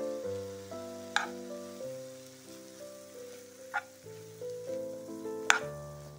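Grated carrot, onion and bell peppers with tomato paste sizzling in a frying pan as a spatula stirs them, with three sharp clicks of the spatula against the pan. Soft piano music plays throughout.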